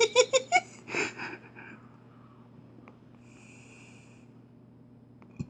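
A man laughing in short rapid bursts that trail off into a breath about a second in, then quiet room tone with a faint high tone for under a second near the middle.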